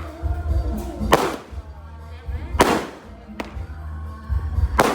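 Fireworks going off: three loud sharp bangs about a second and a half apart, with a thinner crack between the last two.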